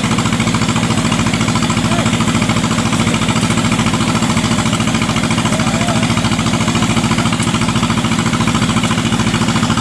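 Engine of a small tracked rice carrier running with a fast, even chugging as it crawls through a flooded, muddy ditch loaded with sacks of rice.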